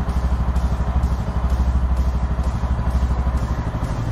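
Bajaj Pulsar N160's single-cylinder engine idling steadily with a fast, even pulse, easing a little near the end.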